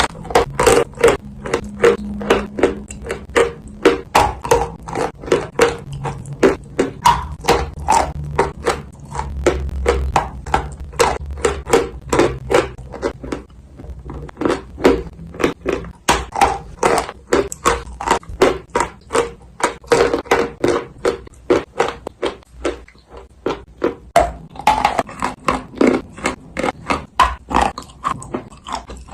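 Dry edible clay being bitten and chewed close to the microphone: a rapid run of sharp crunches, about two or three a second, easing off briefly about three-quarters of the way through.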